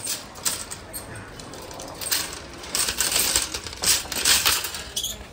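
Wire shopping cart rattling and clattering as it is pushed, in irregular metallic bursts, loudest about two to four and a half seconds in.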